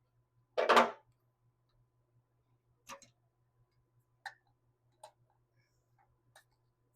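Hand tools at work on the carburetor mounting bolts: one loud clank just under a second in, then a handful of short, sharp clicks and taps spaced a second or so apart.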